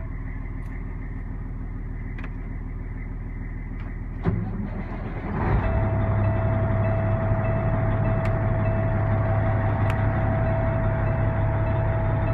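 Caterpillar C-15 diesel of a 2007 Peterbilt 379 starting from cool: a click about four seconds in, about a second of cranking, then the engine catches and settles into a steady, louder idle.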